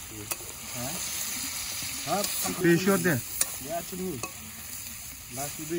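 Metal spatula stirring and scraping chicken and potato curry in a steel wok, the food sizzling as it fries. A few sharp clinks of the spatula against the pan.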